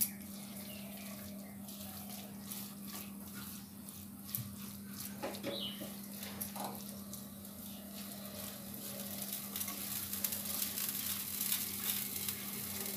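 A spatula stirring and scraping grated coconut and sugar around a non-stick kadai over a medium gas flame: soft, irregular scrapes and light taps, with a faint steady hum underneath.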